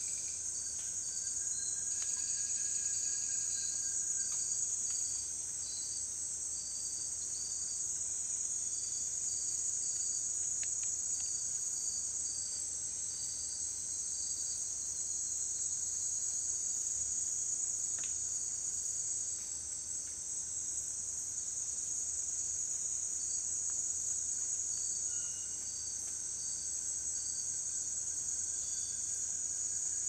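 Tropical rainforest insect chorus: a steady high shrill drone, with a second insect giving short repeated chirps over much of it.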